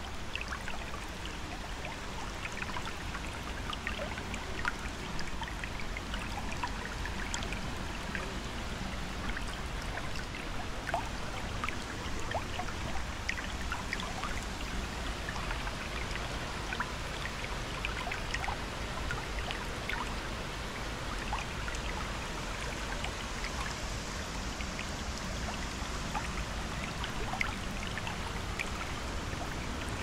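Steady rush of flowing river water, thick with small splashes and drips, with a low rumble underneath.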